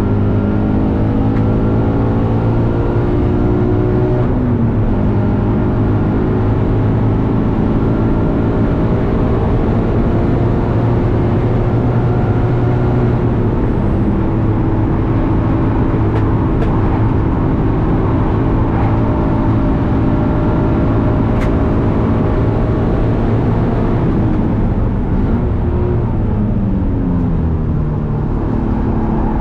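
Naturally aspirated Toyota 86's flat-four engine running hard, heard from inside the cabin during a track lap, over steady tyre and wind noise. The engine note drops sharply about four seconds in, then holds high and falls away near the end.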